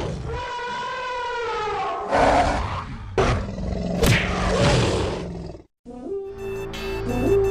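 A monster roar sound effect: one long call sliding down in pitch, then harsher, rasping bursts. It cuts off about five and a half seconds in, and music with a steady held note and a light ticking beat follows.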